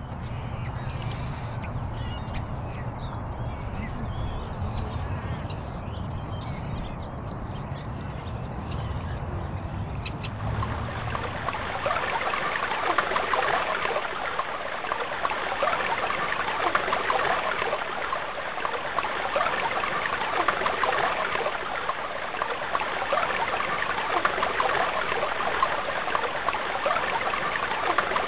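Fast-flowing mountain stream, a steady rush of white water over rocks that comes in suddenly about ten seconds in and then holds. Before it, a low steady hum with faint scattered sounds.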